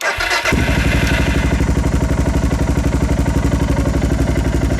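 Suzuki DR650's single-cylinder four-stroke engine through a Screaming Demon stainless oval exhaust, starting up and settling within half a second into a steady, evenly pulsing idle.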